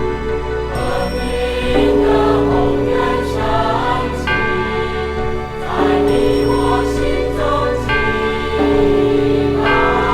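Choral singing over sustained instrumental chords.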